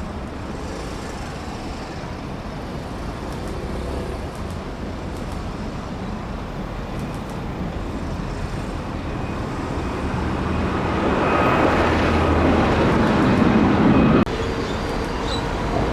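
Airbus A330-343 jet airliner with Rolls-Royce Trent 700 engines arriving at the airport, its jet noise a rumble with a faint whine that builds steadily and is loudest just before it cuts off abruptly about 14 seconds in.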